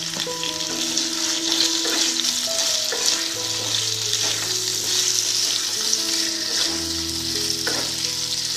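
Cubed potatoes frying in hot mustard oil in a kadai, with a steady sizzle throughout. A wooden spatula stirs and turns them.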